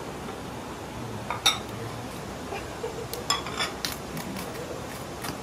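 Knife and metal tongs cutting into the crisp crackling skin of a whole roast suckling pig (babi guling): a few sharp crunches and clicks. The loudest comes about one and a half seconds in, and a pair follows a little after three seconds.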